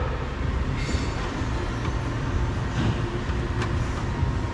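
Steady low rumble of background noise, with a faint click or two of handling parts.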